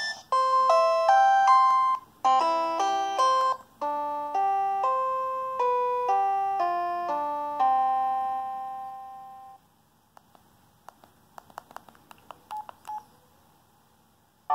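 Preloaded ringtone on an LG UX210 cell phone playing through its speaker: a simple melody of bell-like notes, each fading away, in a few short phrases that stop about nine and a half seconds in. A few faint clicks follow, and another ringtone starts right at the end.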